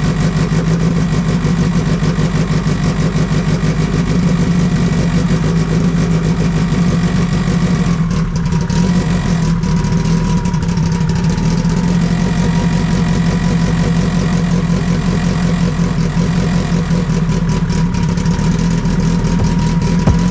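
Freshly rebuilt Toyota MR2 race engine running steadily at idle on its first start after the rebuild, with a thin steady whine coming in about eight seconds in.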